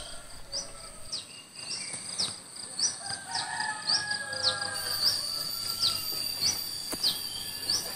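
Tropical village ambience: a bird repeating a short, falling high-pitched chirp two to three times a second over a steady high insect hum, with a faint rooster crowing about halfway through.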